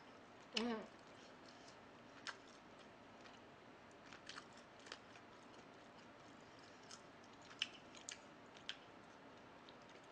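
Near silence with faint eating sounds: a few scattered soft clicks and ticks from chewing and from chopsticks picking meat off the pork bones of gamjatang.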